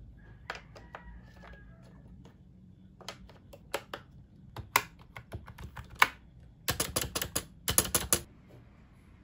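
Plastic clicks and taps of AA batteries being pushed into a wireless keyboard's battery compartment and the keyboard being handled, then, near the end, a quick burst of rapid typing on its round keycaps. The keyboard is non-mechanical, so the keystrokes are lighter than mechanical switches.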